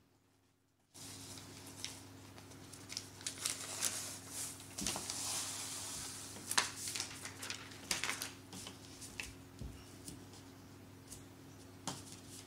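Paper backing being peeled off a self-adhesive vinyl repair patch: crackly rustling and tearing as the adhesive lets go, starting about a second in. It is loudest in a long steady peel around the middle, with light taps and crinkles as the sheet is handled.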